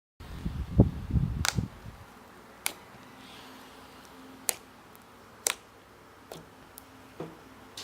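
Low handling bumps for the first two seconds, then sharp single clicks roughly a second apart from basic slime being played with.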